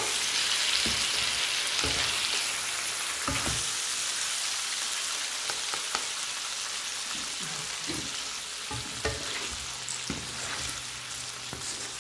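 Eggplant and anchovy stir-fry sizzling in a frying pan, with a spatula clicking and scraping against the pan every so often as it is stirred. The sizzle gradually quietens toward the end.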